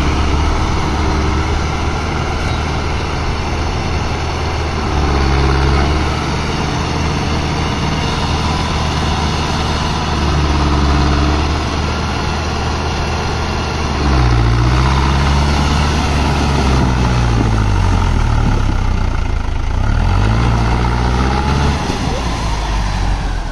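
Mahindra Arjun Novo 605 DI-i 4WD tractor's four-cylinder diesel engine working under load as the tractor drives through deep paddy-field mud. The engine note rises briefly a few times, then from about halfway through swings up and down repeatedly as the throttle is worked.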